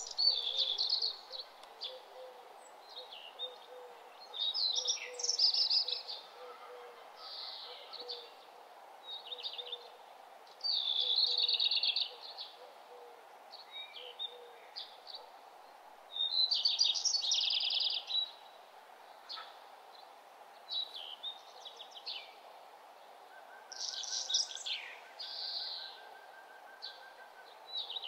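Birds chirping and singing in short, high phrases every second or two, over a steady low hum.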